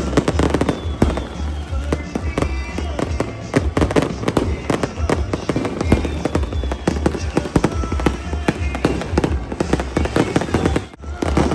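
Fireworks going off in a dense, continuous run of rapid bangs and crackles, with music and voices underneath.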